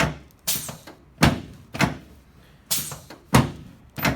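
Chiropractic drop table: its sections slam down with sharp thuds, about seven in quick succession, as adjusting thrusts go into the sacroiliac joints.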